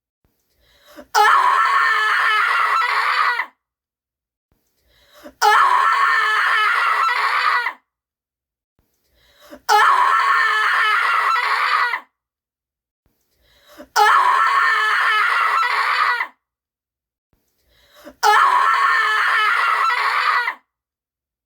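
A woman screaming in terror and despair: five long screams, each about two seconds, about every four seconds. Each scream has a short quieter lead-in, and there is silence between them.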